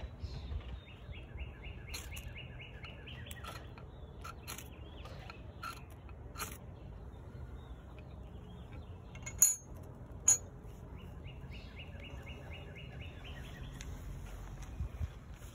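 Short scraping strikes of a Kelsmuk knife's spine on a hard ferro rod, several quick controlled strokes in the first few seconds, then two sharp clacks about nine and ten seconds in as the knife and rod are laid down on concrete. A bird's even trill sounds twice in the background.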